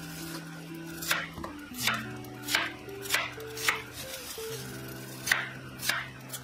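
Chef's knife slicing through a peeled Chinese yam and hitting the cutting board: seven cuts, about one every half second or so, with a short pause midway. Soft background music underneath.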